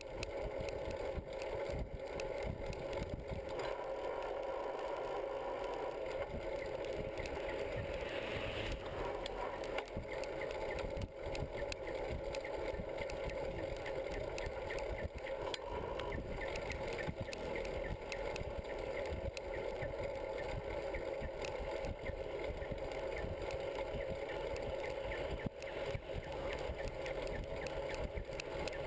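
Riding noise of a bicycle on an asphalt road, picked up by a camera mounted on the bike: a steady rushing noise with frequent small knocks and rattles.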